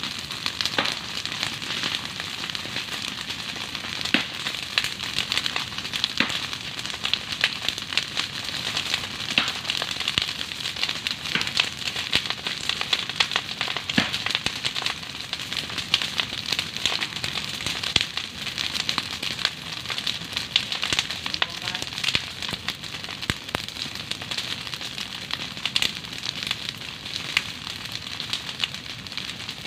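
Open fire of dry palm fronds burning, a steady crackle and hiss with many small sharp pops throughout.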